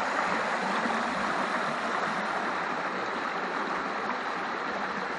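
A small stream flowing steadily, a little quieter toward the end.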